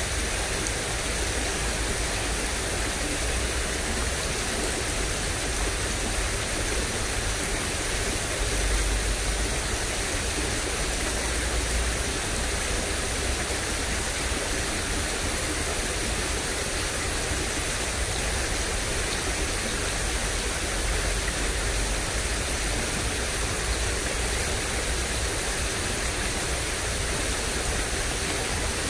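Steady rush of flowing water in a drainage ditch, an even hiss with a low rumble underneath.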